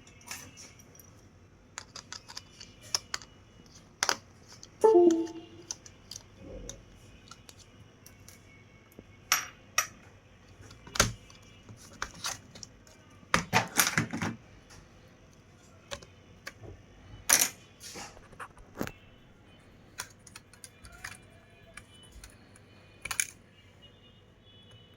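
Irregular clicks and light knocks of small tools and parts being handled during laptop repair work, with a louder run of knocks a little past the middle and a faint steady high whine underneath.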